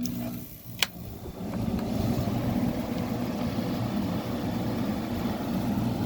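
A 1988 Fedders 5,000 BTU window air conditioner starting up on being plugged in: a sharp click just under a second in, then its fan and compressor settle into a steady low hum that grows louder from about a second and a half in.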